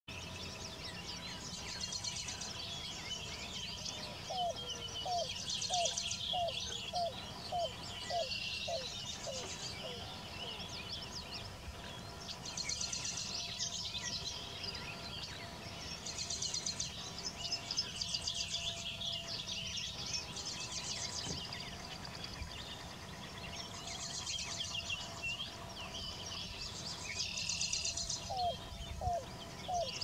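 Yellow-billed cuckoo calling: a series of about ten short, hollow, hooked notes that slow down as they go, and a second series starting near the end. Busy high-pitched chirping of other birds runs underneath.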